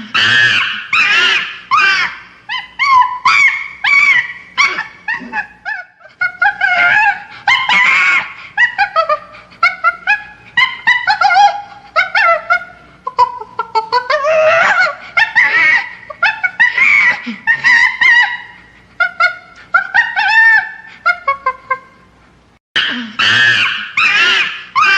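Chimpanzee vocalizing: a long series of short, high-pitched squealing calls that bend up and down in pitch, broken by a couple of brief pauses.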